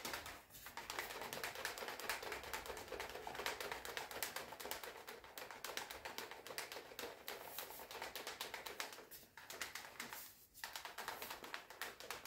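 Plastic shaker cup with a sieve insert, holding protein powder and a little water, shaken hard: a fast, continuous clatter with short breaks near the start and twice near the end. The shaking breaks up the powder lumps.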